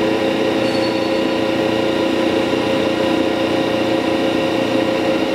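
Landis 3RH universal cylindrical grinder running with its grinding wheel spinning and the table traversing lengthwise: a steady machine hum made of several constant tones.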